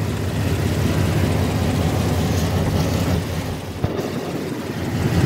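Nissan Titan pickup's engine idling, a steady low rumble. It dips a little in level about three and a half seconds in, with a short click near four seconds.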